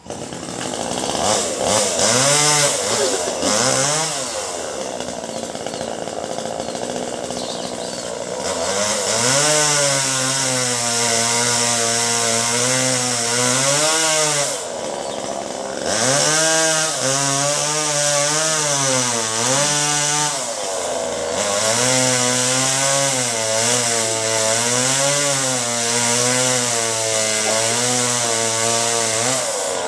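Two-stroke chainsaw running at high revs and cutting melinjo wood, its engine pitch repeatedly rising and sagging as the chain bites. About halfway through it briefly drops back toward idle, then revs up again and carries on cutting.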